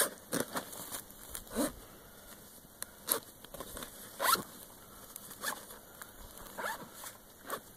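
Zippers on a tan tactical backpack being pulled shut in a series of short rasping strokes, roughly a second apart.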